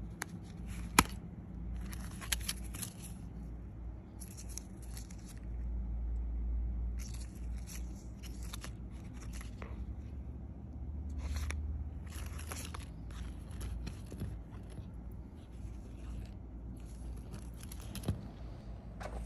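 Hands handling a packaged pajama set: irregular rustling and scraping of paper hang tags, cardstock and fabric, with a sharp click about a second in and another near the end.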